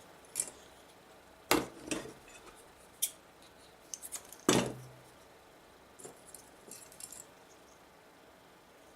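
Small tools and parts being handled and set down on a workbench: scattered clicks and clinks, the loudest about four and a half seconds in, then a few lighter clicks.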